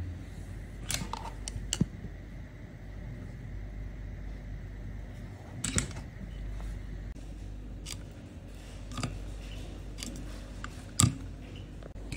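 Scattered light clicks and knocks of a soldering iron handle and station being handled on a workbench, with the sharpest knock near the end, over a low steady hum.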